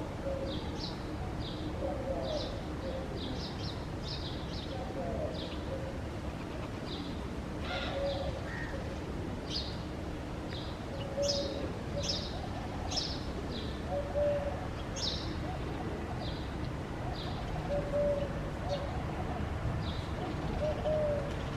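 Birds calling outdoors: many short, high chirps repeating throughout, with short low notes every couple of seconds.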